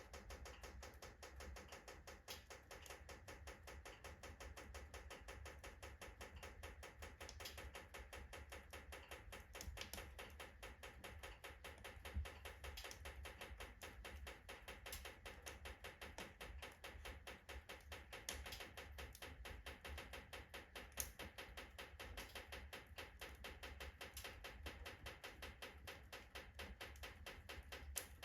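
Oak logs burning in a fireplace, crackling faintly and constantly with a few sharper pops.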